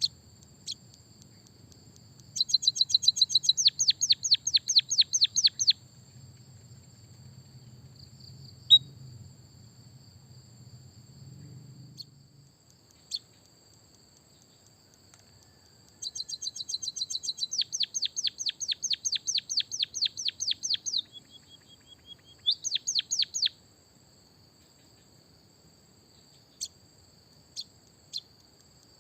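Songbird singing in two bursts of rapid trills, each of fast repeated falling notes lasting a few seconds; the second burst runs into a held whistle and then a short trill. Single chips come between the bursts, over a faint steady high-pitched whine.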